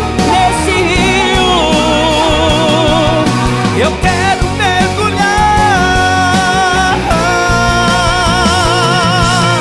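Brazilian Christian pop song: long held melody notes with a wide vibrato over a steady bass line and band.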